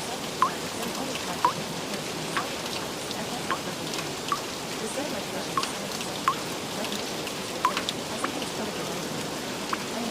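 Steady rain hiss with individual drops landing about once a second, each a short, slightly rising plink.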